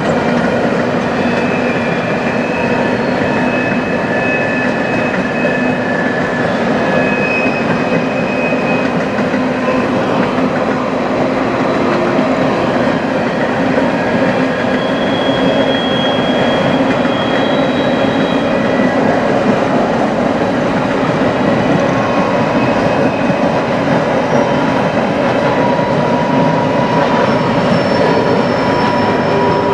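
Freight train of coal hopper cars rolling past close by: a steady rumble and clatter of steel wheels on the rails. Thin, high wheel squeal comes and goes throughout.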